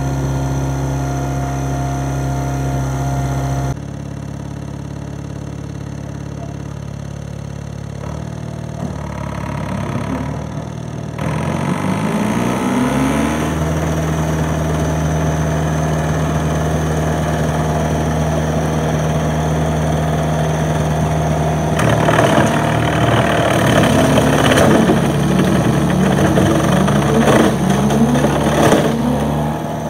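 Holder two-cylinder two-stroke diesel tractor engine running, then revving up with a rising pitch about a third of the way through and holding steady at higher revs. Over the last quarter a loud, rough clattering and crashing joins it as the tractor's rotary slasher runs over and smashes a solar panel.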